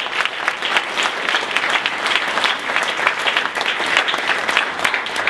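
Audience applauding: many hands clapping in a dense, even stream.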